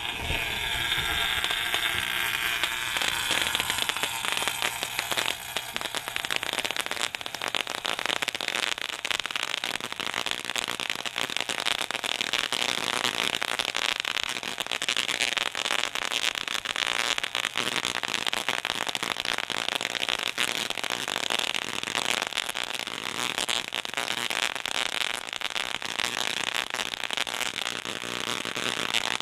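Tesla coil running continuously, its toroid throwing branching spark streamers into the air: a loud, unbroken crackling buzz of electrical discharge.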